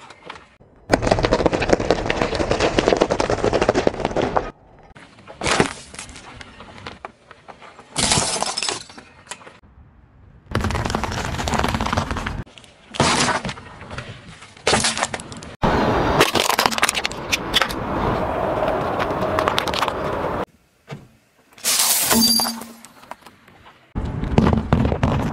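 Car tyre rolling over and crushing objects in a quick run of separate takes: crunching, cracking and breaking sounds, each a second or two long and cut off abruptly. Around the middle, hard candy-coated sweets crack and crunch under the tread.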